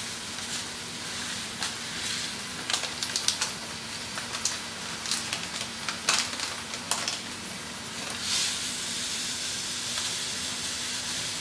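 White sesame seeds poured from a packet into a dry, heated stainless steel pan, the grains ticking and clicking against the steel in scattered patters, over a steady hiss from the gas burner.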